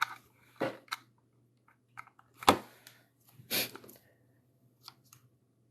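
Clicks, knocks and rustles of gear being handled and plugged in on a workbench, the loudest knock about two and a half seconds in and a longer scraping rustle about a second later, over a low steady hum.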